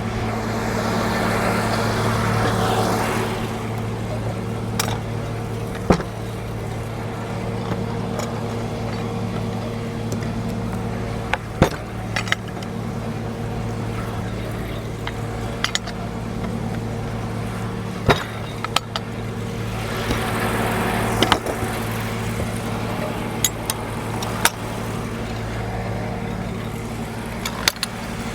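Frick sawmill at work: the mill's power unit running steadily with a constant hum, and twice, near the start and about two-thirds through, a rise in noise as the saw cuts boards off the cant. Sharp knocks and clanks from the carriage and mill come at scattered moments.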